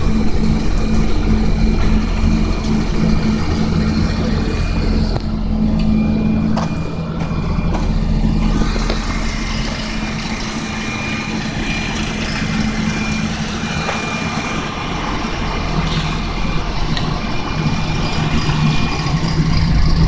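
Volvo asphalt paver's diesel engine running steadily under a constant machinery din. The engine hum eases about a third of the way in and strengthens again near the end.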